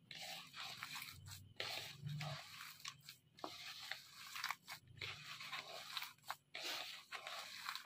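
Mashed boiled potato with finely chopped vegetables and spices being mixed in a bowl: irregular squishing and scraping strokes with short pauses between them.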